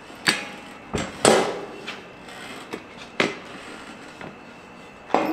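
Steel hand truck frame and wheels knocking against a workbench as the dolly is turned over: about six separate clunks, the loudest about a second in.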